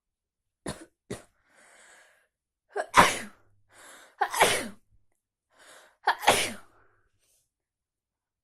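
A person with a heavy cold sneezing: two short catches of breath, then three loud sneezes in quick succession, each with a quick breath drawn in before it.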